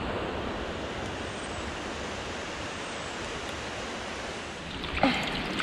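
Waterfalls on a mountain stream, a steady rush of falling water. About five seconds in there is a brief bump, after which closer splashing and trickling comes through.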